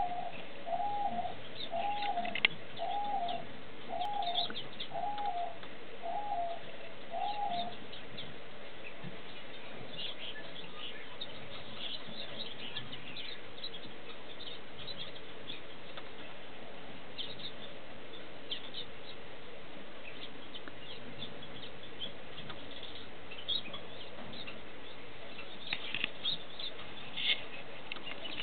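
Small aviary finches chirping: many short, high chirps scattered throughout. Over the first eight seconds another bird gives a repeated call, about eight even notes, each rising and falling, roughly one a second.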